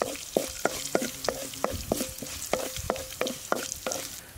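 Spatula stirring and scraping cumin seeds and green chillies frying in sizzling oil in a pan: a steady hiss of frying with quick sharp scrapes, about four a second. The cumin is being tempered in the hot oil.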